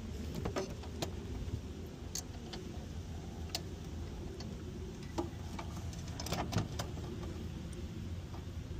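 Scattered small metal clicks and clinks as the aluminium parts, rod and screws of a laminate floor cutter are handled and fitted together, several in quick succession about six and a half seconds in, over a steady low rumble.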